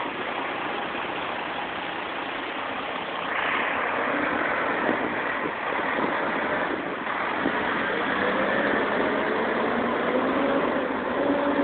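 A fire engine's engine running as the truck drives through floodwater, over a steady wet hiss of rain and water. The noise grows louder about three seconds in as the truck comes by.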